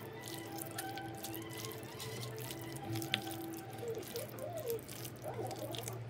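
Hands squishing and kneading raw chicken pieces through wet biryani masala paste in a bowl, making a run of irregular small wet squelches and clicks: the chicken being mixed for marinating.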